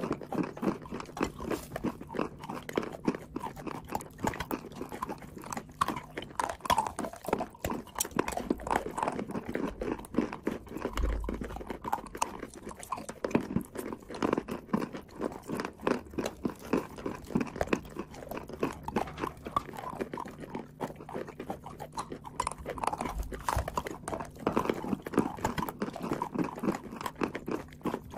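Close-up biting and chewing of lumps of chalk and clay: dense, irregular crunching and grinding, several crunches a second.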